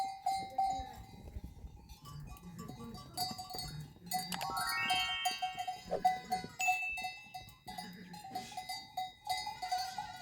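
Bells hung on sheep and goats clanking irregularly as the flock moves, a quick jangle of overlapping ringing strikes.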